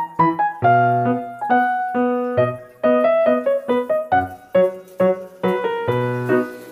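Background piano music: a run of single struck notes, several a second, each fading quickly.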